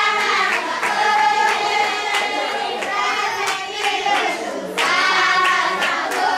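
A group of people singing together in a call-and-response style dance song, with hand clapping about twice a second.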